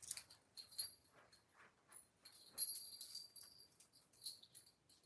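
Thin metal necklace chains jingling and clinking in a run of light, high jingles as they are handled and untangled, loudest about two and a half seconds in.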